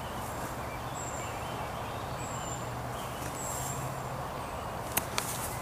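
Quiet outdoor background noise with a short high chirp repeating about every second and a quarter, a faint low hum that comes and goes, and two sharp clicks about five seconds in.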